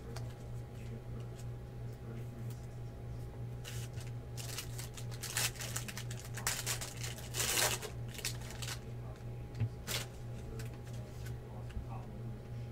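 Crinkling and rustling of a trading-card pack's plastic wrapper being pulled from its box and handled, in a flurry of bursts in the middle with a sharp click near the end, over a steady low electrical hum.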